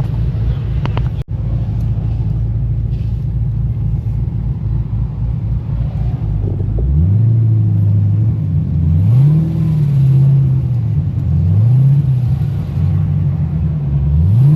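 Car engine running at low revs, then from about halfway the revs rise and fall several times in a row.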